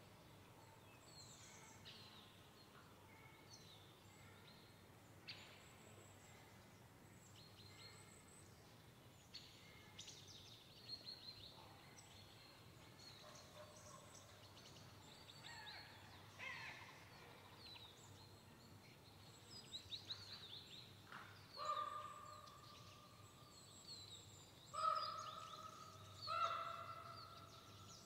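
Crows calling three times late on, each call about a second long and the loudest sounds, over quiet forest ambience with short high calls scattered throughout.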